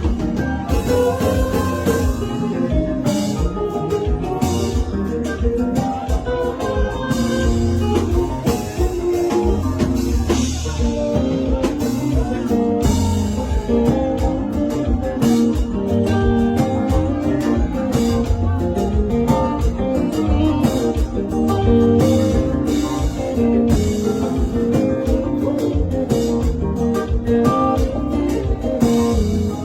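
Band music: an electric guitar playing a solo over bass and drums, with a steady beat.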